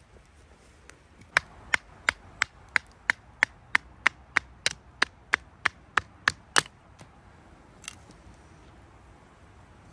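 Wood being split for kindling with a fixed-blade knife: a quick, even run of about sixteen sharp wooden knocks, about three a second, then one lighter knock a second later.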